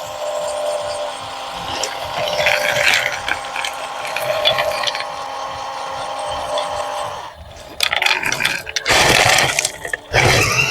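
Small electric gear motors of RC construction models whirring and ratcheting steadily. From about seven seconds in, loud rough bursts of noise break in, one after another, with short gaps between them.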